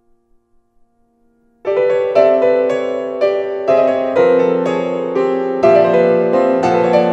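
Yamaha grand piano played solo: a moment of very soft held notes, then about a second and a half in, loud chords break in and go on, struck roughly twice a second, each left ringing into the next.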